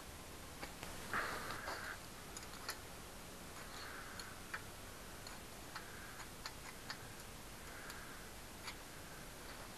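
Irregular light clicks and taps with some soft scraping: hand tools and metal parts being handled while working on a bicycle.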